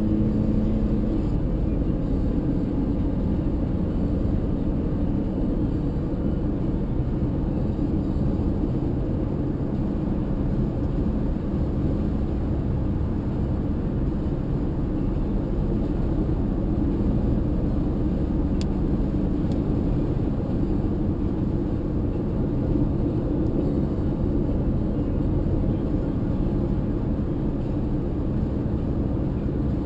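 Steady low rumble of a car driving at road speed, with two faint ticks a little past the middle.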